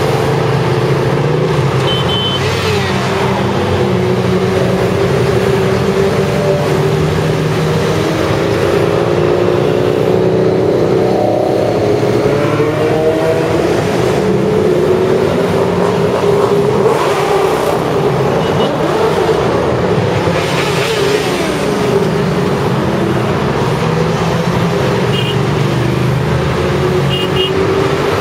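Motorcycles riding past in a continuous procession, many engines running at once over a steady rush of motorway traffic, their pitches gliding up and down as bikes go by. A few short, high beeps sound now and then.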